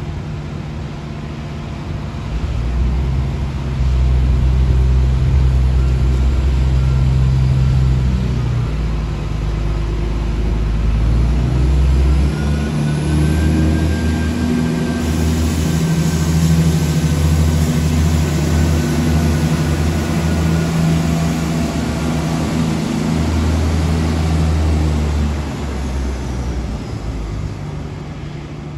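Renfe Class 599 diesel multiple unit's MAN diesel engines working hard as the train pulls away, a deep engine note that grows louder after a few seconds and shifts pitch in steps as it accelerates. It fades as the train moves off near the end.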